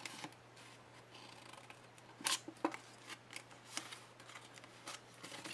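Small paper snips cutting slits into the tabs of a sheet of patterned paper: several short, faint snips, the clearest a little over two seconds in.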